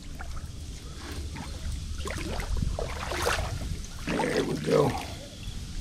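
A hooked crappie splashing and thrashing at the surface in shallow water at the bank, over a steady wind rumble on the microphone, with short knocks and rustles of handling.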